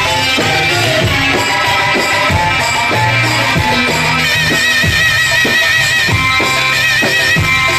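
Instrumental Egyptian sha'bi wedding band music: steady hand-drum and percussion beats under a melody, with a high wavering lead line coming in about halfway.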